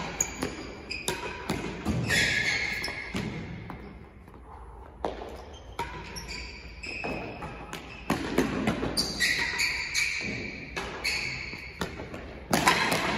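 A real tennis rally: the hard ball is struck by rackets and bounces off the floor and walls in a string of sharp, irregular knocks that echo around the large enclosed court.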